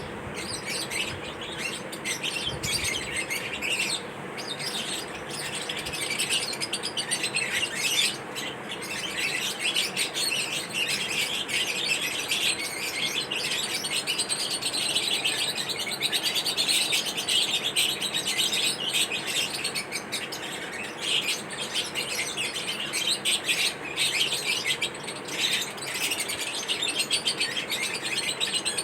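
A group of lovebirds chattering, with a dense, continuous stream of rapid high-pitched chirps.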